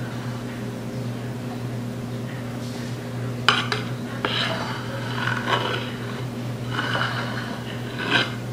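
Metal spatula scraping and clicking as a marshmallow-fluff and frosting cream is spread over the top of a layer cake: a sharp click about three and a half seconds in, another just after, then scrapes on and off through the second half. A steady low hum lies underneath.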